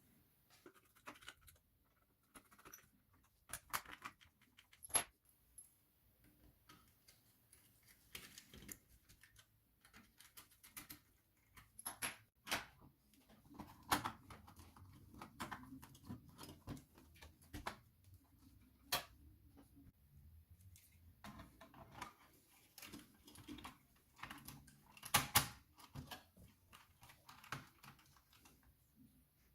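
Scattered light clicks and taps with small rattles, at an uneven pace, from the small parts of a toy model car being handled and worked on. A sharp click comes about five seconds in, and a quick cluster of louder taps comes near the end.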